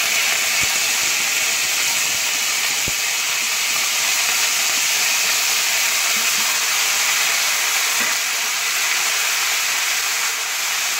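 Chopped jackfruit seeds sizzling in hot coconut oil in a wok: a loud, steady hiss, with a couple of faint ticks in the first few seconds.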